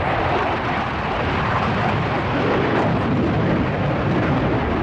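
Jet noise from an F-4EJ Kai Phantom II's twin J79 turbojets in display flight: a loud, steady rush of noise, its low rumble growing slightly stronger in the second half.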